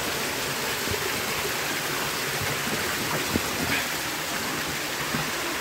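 Steady rush of shallow water flowing through a tunnel, with a few faint splashes.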